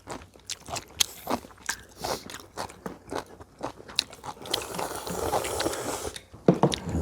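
Close-up eating sounds: crisp bites and chewing clicks of crunchy food, with a longer hissy noise from about four and a half to six seconds in.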